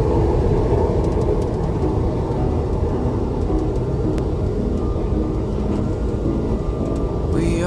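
Steady rumble of a moving passenger vehicle heard from inside the cabin. Music starts right at the end.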